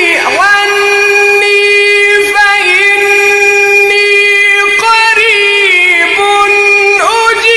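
Melodic Quran recitation (tajweed): a single male reciter chants in long held notes, each ornamented with wavering turns, with short pitch dips where one phrase gives way to the next.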